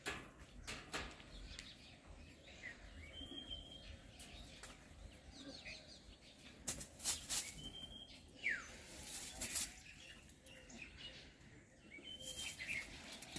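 Bursts of rustling and crackling as gray langurs scramble and leap through branches and dry leaves, loudest about halfway through. Meanwhile a bird repeats a short high call every four to five seconds.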